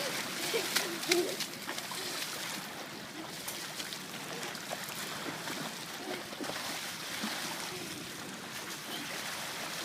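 Water splashing and lapping, over a steady even hiss.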